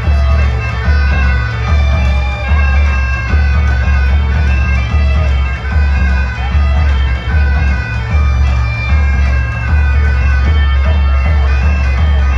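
Bagpipes playing a lively dance tune over a steady drone, with a pulsing low beat underneath.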